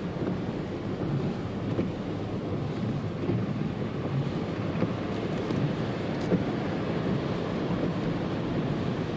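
A Skoda Yeti SUV driving through floodwater, heard from inside the cabin: a steady, even rush of water thrown up by the tyres against the wheel arches and underbody, mixed with road and engine noise.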